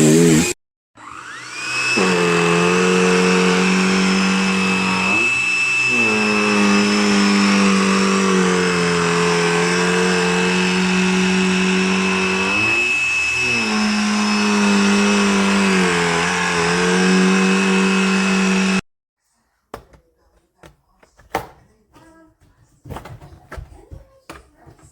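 Black+Decker Dustbuster cordless handheld vacuum motor stops for a moment, then starts again with a rising whine and runs steadily, its pitch dipping briefly twice, before being switched off abruptly. A few light clicks and knocks of handling follow.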